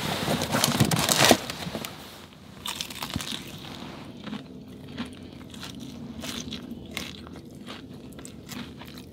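Biting into a sauce-coated fried chicken thigh: a loud crunch in the first second and a half, then softer, irregular crackling chewing. The coating is one the eater finds oily rather than really crisp.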